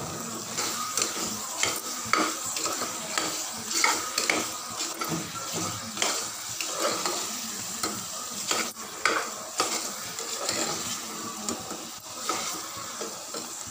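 Metal spoon stirring mutton masala in a pressure cooker: repeated scrapes and clicks of the spoon against the pot over the sizzle of the masala frying.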